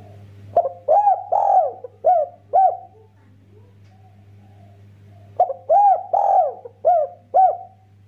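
Spotted dove cooing: two phrases of about five arching coos each, the first starting about half a second in and the second about five and a half seconds in. A faint steady low hum lies underneath.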